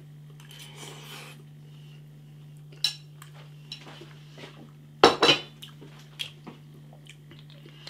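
Cutlery clinking and scraping against a dish of food in scattered short knocks, the loudest cluster about five seconds in, over a steady low hum.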